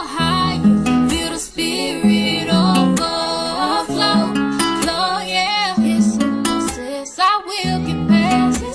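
Background music: a song with strummed acoustic guitar, a repeating bass line and a singing voice.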